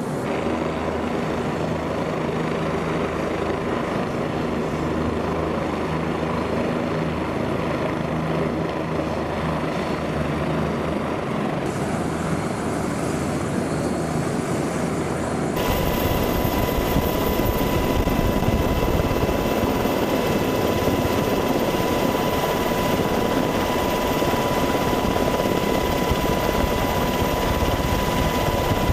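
OH-58 Kiowa helicopters running, their turbine engines and rotors making a steady, even drone. About halfway through the sound changes abruptly to a louder, rougher helicopter noise with a steady high whine.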